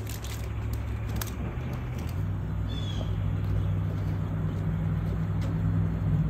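A low, steady mechanical hum that grows slowly louder, with a few sharp clicks in the first second or so and one short, high falling chirp about three seconds in.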